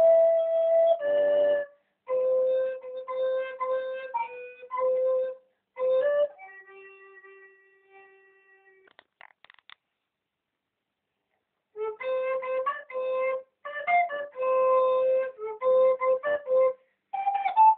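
A recorder playing a simple melody in short, separated notes. It breaks off a little over five seconds in, falls silent for a few seconds, and picks up again about twelve seconds in.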